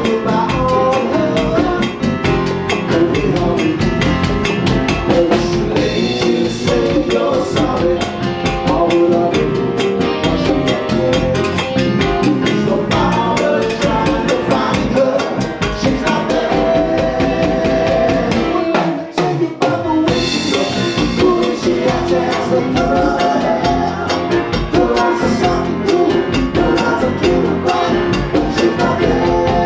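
A Latin band with a drum kit and percussion playing salsa-style music. The music briefly drops out about two-thirds of the way through.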